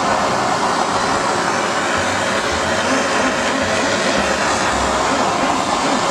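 Handheld blowtorch burning with a steady, loud rushing hiss, its flame turned up high, as it is passed over wet acrylic paint.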